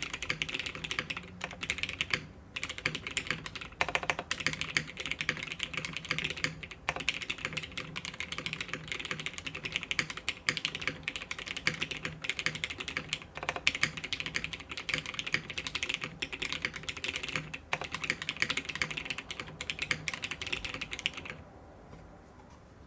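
Continuous fast typing on a Bias v1 prototype mechanical keyboard with stem-lubed Nixie switches, a top-mounted aluminium half plate and DCS keycaps: a dense run of keystroke clacks. The typing stops near the end.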